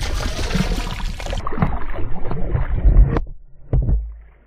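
A hooked bass thrashing and splashing at the water's surface while being landed. The splashing is loudest in the first second and a half, dies down after about three seconds, and is followed by a couple of short knocks.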